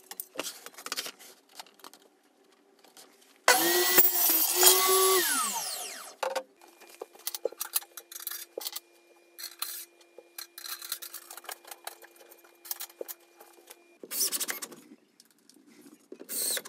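A power saw runs for about two and a half seconds, then winds down with its pitch falling. Before and after it come scattered clicks, knocks and rubbing of parts being handled, with two short loud bursts near the end.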